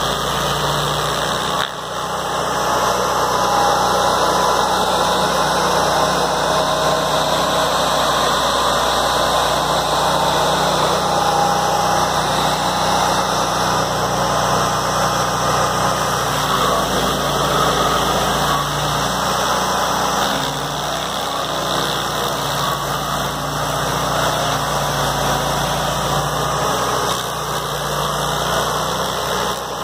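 Gas-engine stump grinder running loudly and steadily, its cutter wheel grinding into a 20-inch cottonwood root, with a brief drop in level about two seconds in.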